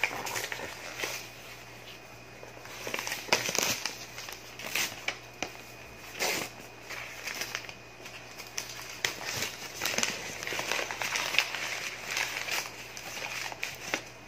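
Gift wrapping crinkling and crackling as it is pulled off and crumpled away from a box, in irregular rustles with sharp crackles.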